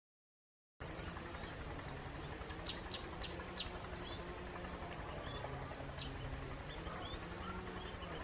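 Several small birds calling in the open: repeated thin, very high chirps throughout, with a quick run of four falling notes about three seconds in. The sound cuts in suddenly a little under a second in, after dead silence.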